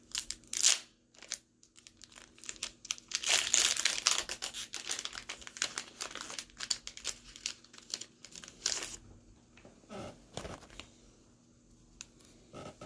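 Foil Pokémon booster pack wrapper crinkling as it is handled and torn open, in short crackles that are densest about three to six seconds in.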